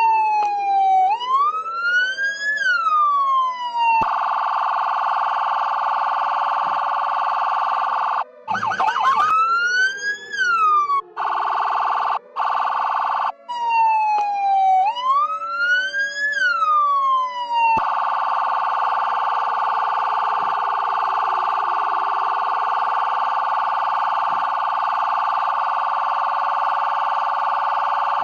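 Simulated emergency-alert siren: a loud wailing tone that sweeps up and down about every two and a half seconds switches several times with a steady held tone, over a slower, lower wail that rises and falls about every ten seconds. About eight seconds in it drops out briefly with a short crackly burst, and it ends on the steady tone.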